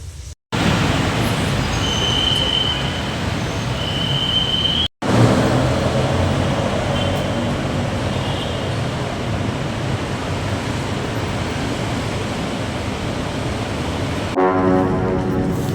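Steady road traffic noise, with two short high beeps about two and four seconds in. The sound cuts out briefly twice.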